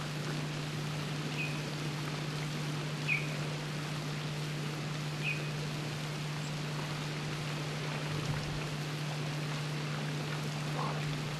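Steady rushing of a flowing creek under a low steady hum, with three short high chirps in the first half and a faint brief sliding sound near the end.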